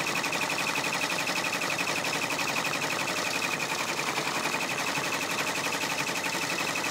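Brother PR655 multi-needle embroidery machine stitching at speed: a fast, even clatter of needle strokes as it sews a top stitch around an in-the-hoop vinyl key fob.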